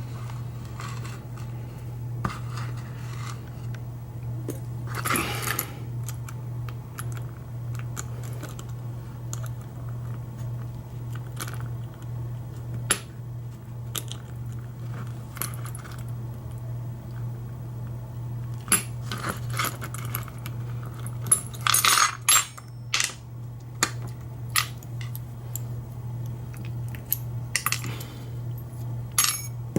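Small metal lock parts clicking and scraping as a Kwikset SmartKey deadbolt cylinder is taken apart with a clip tool. Scattered clicks come in clusters about five seconds in, around twenty seconds in and near the end, over a steady low hum.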